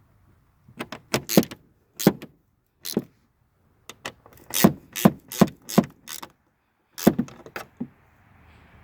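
A series of sharp, uneven clicks and knocks, about fifteen in all, from hard plastic and metal parts and tools being handled as the turn signal assembly is finished off.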